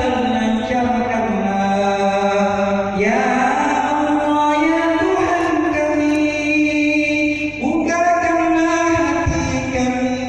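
A man's voice chanting a prayer in long, drawn-out melodic notes, sliding between pitches. He starts new phrases about three seconds in and again near eight seconds.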